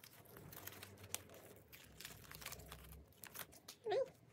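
Faint crinkling and rustling as fingers pick and peel a heat-transfer sheet off the top of a printed design on a cotton T-shirt, with small scattered clicks.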